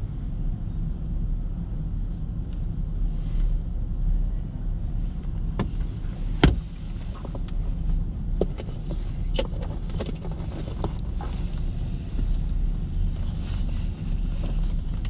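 Steady low rumble of a ferry's vehicle deck, with scattered clanks and clicks; one sharp knock about six and a half seconds in is the loudest.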